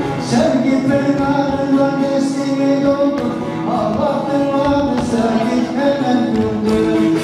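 Turkish Alevi semah music: a bağlama (long-necked lute) strumming a steady melody with a voice singing along.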